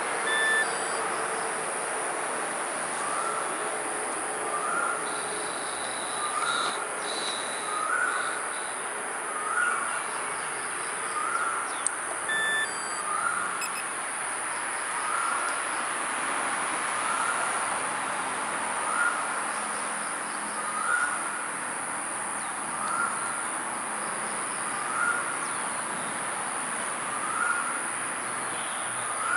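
A bird repeats one short rising chirp about every one and a half to two seconds, over a steady high-pitched hiss.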